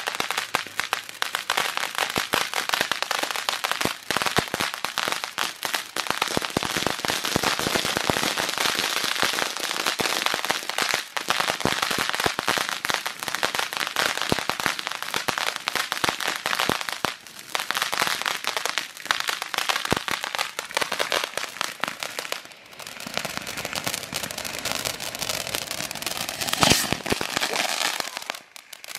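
TNT Fireworks ground fountains burning, a steady hiss of spraying sparks with dense crackling throughout. It eases briefly a few times, and there is one sharper crack near the end.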